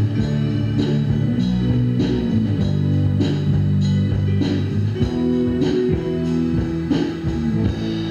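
Band music: guitar and bass over a steady beat of about two strikes a second.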